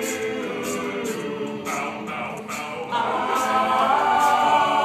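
Male a cappella group singing in close harmony without clear lyrics, with a steady percussive beat made by voice.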